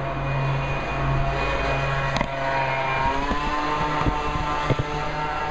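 Volvo D5 five-cylinder diesel engine running steadily with the newly fitted auxiliary belt, its even hum shifting slightly in tone about three seconds in. A few light knocks come near the end.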